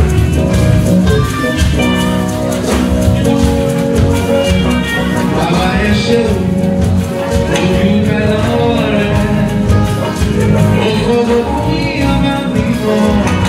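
Live church choir music: a male lead singer sings through a handheld microphone and PA, backed by the choir and a band with a steady beat.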